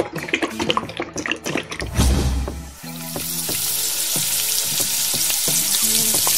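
Background music with a beat and scattered light clicks, then from about three seconds in the loud steady sizzle of lettuce and onion pakoras deep-frying in a pot of hot oil.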